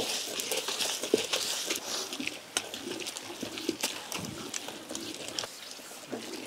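A traditional stone grinder: a heavy stone pestle turned in a round stone mortar, grating and crushing grated coconut with sesame seeds and green chillies. It makes an irregular gritty scraping broken by small clicks.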